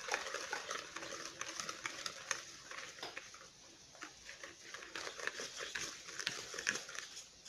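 Wire whisk stirring flour into a thick batter in a bowl: irregular scraping and light clicking strokes.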